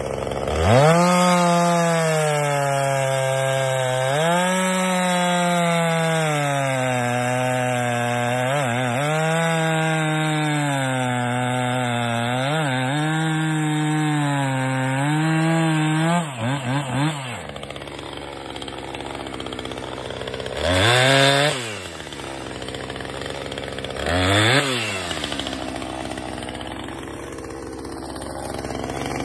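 Husqvarna 455 Rancher two-stroke chainsaw cutting through a log at full throttle, its engine pitch sagging and recovering as the chain bites, for about sixteen seconds. It then drops to idle, with two short blips of the throttle a few seconds apart.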